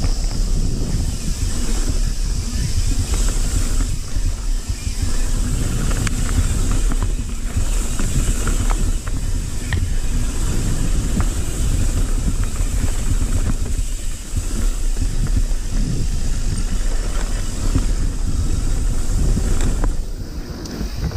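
Mountain bike rolling fast down a dirt trail: tyre rumble and wind buffeting the microphone, with scattered rattles and clicks from the bike over bumps. It eases slightly near the end.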